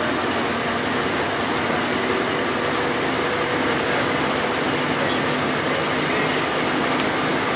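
A PCC streetcar running along the track, heard from inside the cab: a steady rolling noise with a faint, even hum under it.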